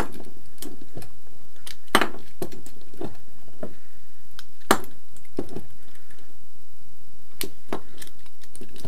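Ratcheting plastic-pipe cutter clicking as its handles are squeezed, its blade stepping through a plastic pipe. The clicks come singly and irregularly, a second or two apart.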